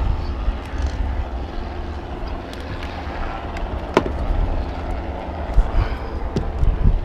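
Wind buffeting the microphone, a steady low rumble with a single sharp tick about four seconds in.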